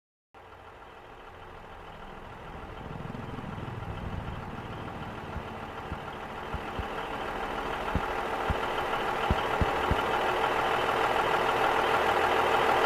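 Harvest machinery engine running steadily, growing gradually louder, with a few short low knocks in the middle.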